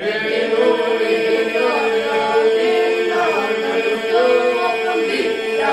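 Group of boys singing an Albanian polyphonic folk song: a steady held drone under lead voices that move and ornament above it.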